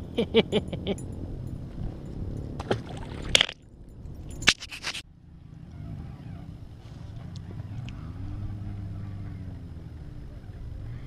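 A short run of voice sounds, then sharp knocks and clatters against a plastic fishing kayak while a hooked bass is fought on rod and reel, loudest about four and a half seconds in, followed by a low steady rumble.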